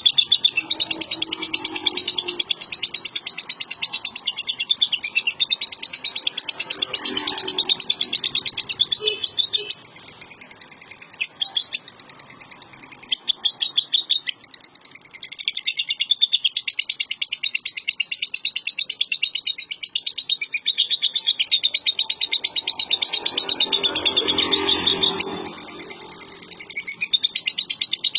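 Lovebird singing: a long, very fast, high-pitched chatter of rapid chirps, thinning out briefly about ten seconds in, then running on.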